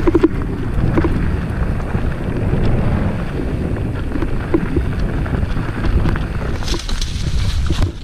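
Wind buffeting the microphone while a mountain bike rides over a dirt trail, with steady rumbling, scattered knocks and rattles from the bike, and a few short squeaks.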